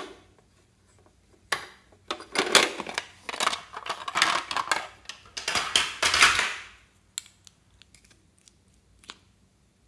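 A sharp click, then a few seconds of clattering and rattling as hands rummage through a hard plastic makeup case, lipstick and lip gloss tubes knocking against the plastic; a few light taps near the end.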